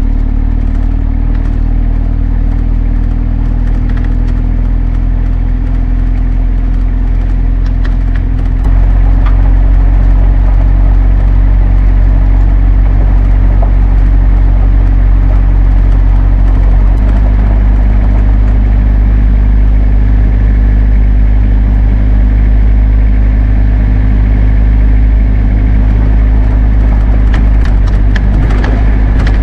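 A 4x4 camper's engine running steadily while driving a gravel mountain road, with road noise. The drone changes and grows louder about nine seconds in, and its pitch shifts again a little past halfway.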